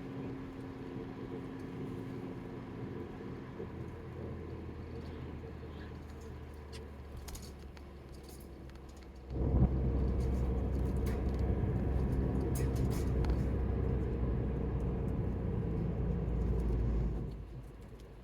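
Road noise and engine rumble heard from inside a moving car. The low rumble jumps suddenly louder about halfway through, stays there, then eases off shortly before the end. Faint light clicks sound now and then over it.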